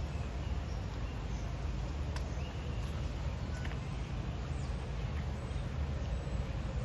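Steady outdoor background rumble with a few faint, short, high chirps scattered through it.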